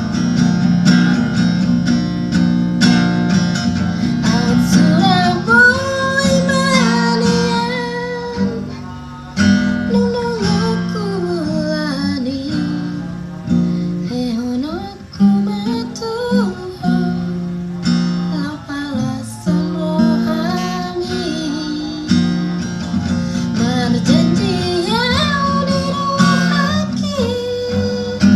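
A woman singing a Batak ballad over strummed acoustic guitar, her voice worn by a cough and cold, which the singer calls gone but still able to reach the high notes.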